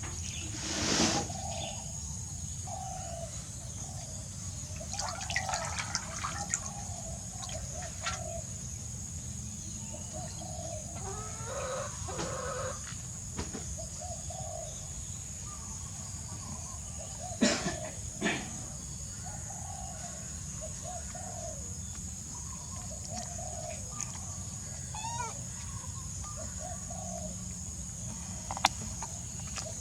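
Chickens clucking: short, soft clucks repeating about once a second, with two sharp knocks a little past the middle.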